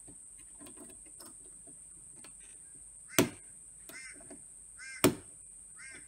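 Two sharp metallic whacks about two seconds apart, from the back end of a screwdriver striking a bump key seated in a brass knob lock's pin-tumbler cylinder. Small clicks between them come from the key being handled in the lock. This is a bump-key attack, and the lock has no resistance to it.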